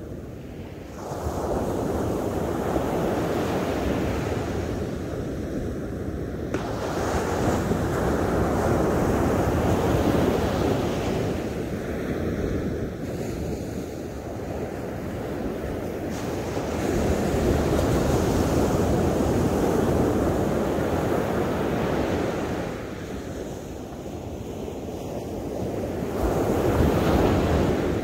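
Ocean surf breaking and washing up a sandy beach: a rushing hiss of water that swells and eases in about four surges, each several seconds long.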